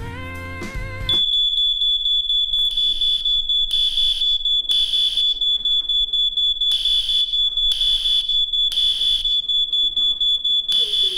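Music cuts off about a second in, and a smoke alarm starts going off: a loud, high-pitched electronic tone that pulses rapidly without stopping.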